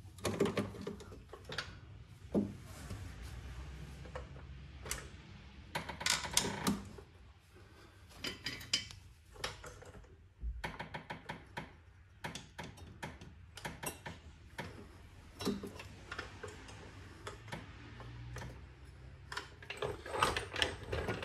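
Scattered, irregular metallic clicks and knocks as a hydraulic floor jack is slowly lowered by its handle, letting the BMW's rear trailing arm carrier come down.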